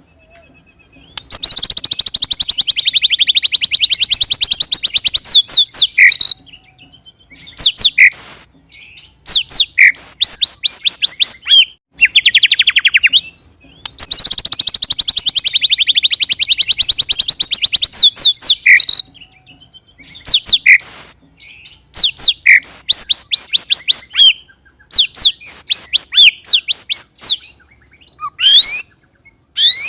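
White-rumped shama (murai batu) song. It has two long, fast rolling trills of rapidly repeated notes, each lasting several seconds, and each is followed by quick runs of sharp whistled notes and rising sweeps. The same sequence comes round twice, about 13 seconds apart, as in a looped lure recording.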